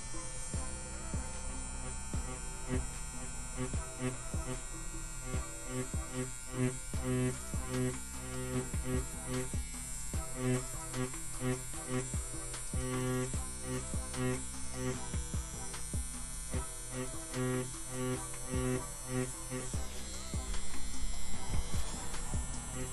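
CNC P6 rotary tattoo pen machine buzzing steadily while it drives a large 25-magnum needle cartridge on a 3 mm stroke in whip shading.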